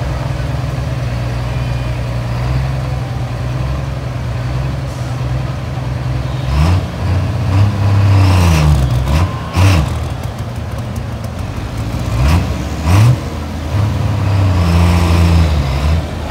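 Diesel pickup truck engine idling steadily, then revved up and down in a series of throttle blips from about six and a half seconds in, and held at high revs near the end as the truck starts its pull on the sled, pouring smoke.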